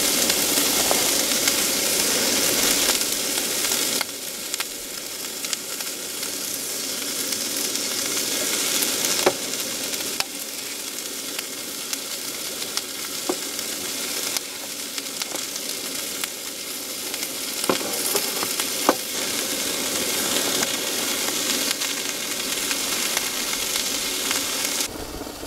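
Beef and squid sizzling steadily in a foil-lined frying pan on a portable gas stove, with a few light clicks.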